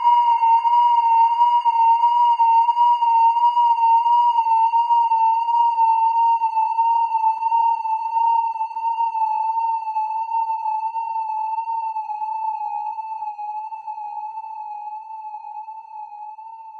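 A single electronic tone held near one note with a slow, regular wobble in pitch, gradually sinking a little lower and fading out.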